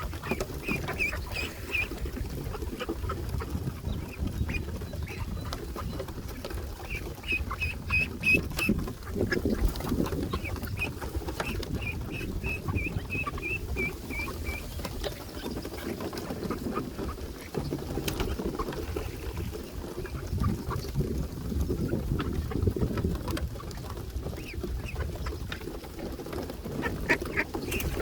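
Ducks calling around the dock, with several runs of short, quickly repeated high-pitched notes over a steady low background noise.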